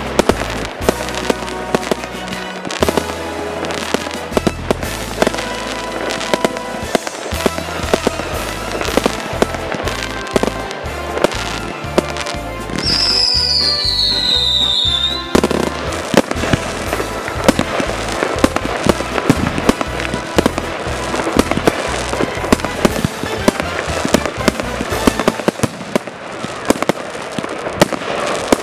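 Fireworks going off at close range: a rapid, uneven string of sharp bangs and crackling pops from shells bursting. Near the middle a high whistle falls in pitch for about two seconds.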